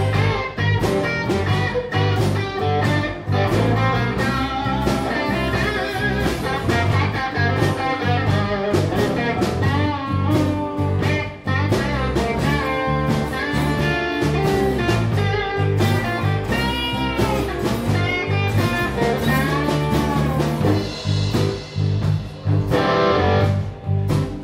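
Live blues band playing an instrumental break: strummed acoustic guitar, electric bass and drums, with a lead guitar line bending notes up and down.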